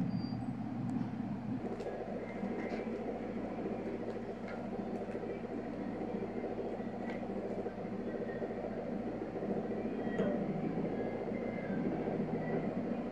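Steady low mechanical hum in the room, with a few faint clicks and crinkles from a clear plastic food container being handled and slices set down on a ceramic saucer.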